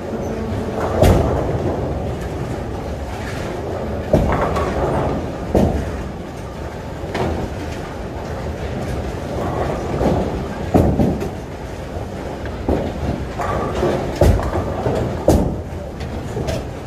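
Bowling alley din: bowling balls rumbling down the lanes, with sharp crashes of pins every few seconds as balls strike across the neighbouring lanes.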